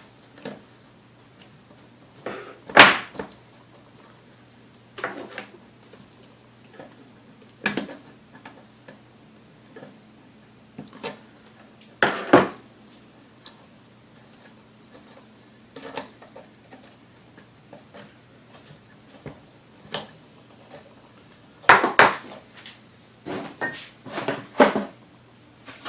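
Scattered metallic clinks and clatters of tools and small metal parts being handled and set down while an old mixer motor is taken apart. The knocks come at irregular moments, a few louder than the rest.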